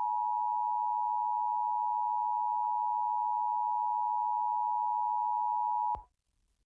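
Emergency Alert System two-tone attention signal (853 and 960 Hz sounded together), a loud steady tone that cuts off suddenly about six seconds in, marking the start of an EAS test.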